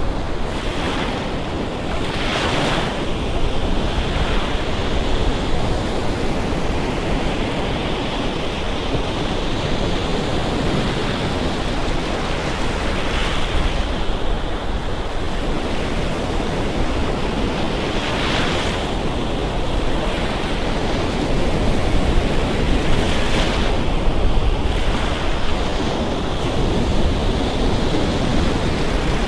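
Gulf Coast surf washing up on a beach: a continuous rush of breaking waves that swells louder now and then, with wind buffeting the microphone.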